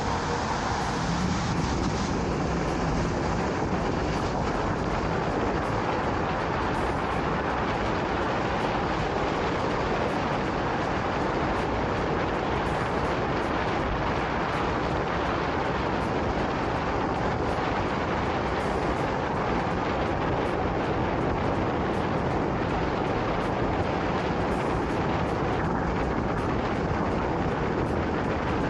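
Steady rush of wind and tyre noise from an electric scooter ridden at speed over wet pavement, picked up by a camera microphone mounted on the scooter.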